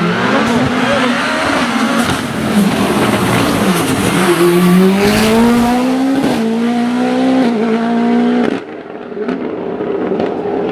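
Mitsubishi Lancer hillclimb prototype's engine at full throttle, climbing in pitch through the gears with short dips at each gear change. About eight and a half seconds in the sound falls away suddenly.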